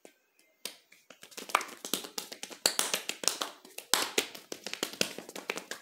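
Hands slapping and clapping in a fast rhythm, body-percussion style, on the lap and palms: a few single slaps at first, then a dense quick run of slaps from a little over a second in.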